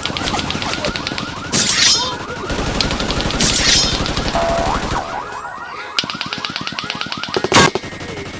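Car alarm sound effect sounding a fast, repeating warble over a rapid rattling, with a sharp crack near the end.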